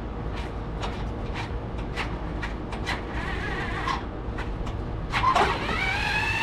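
Scattered sharp clicks and clinks of metal parts and tools being handled, over a steady low hum. Near the end a louder sound sweeps down and then up in pitch and turns into a held pitched tone.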